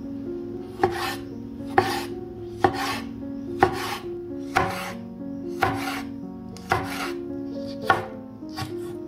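Background music with held chords, over which come about nine sharp strikes, roughly one a second.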